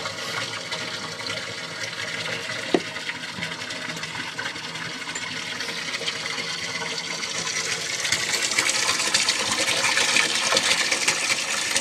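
Seawater pouring into the bilge through the open shaft hole with the propeller shaft being pulled, growing louder about eight seconds in as the bilge fills fast. A single sharp knock comes about three seconds in.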